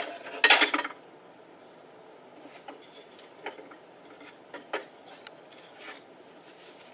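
A brief loud clatter about half a second in, then scattered light knocks and clicks of cut pallet-wood brace pieces being handled after their 45-degree cuts.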